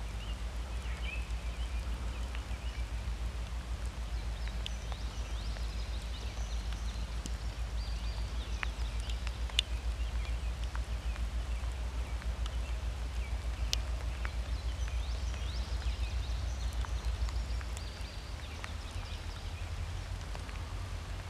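Rural outdoor ambience: a steady low rumble with faint bird calls and scattered light ticks. The rumble eases near the end.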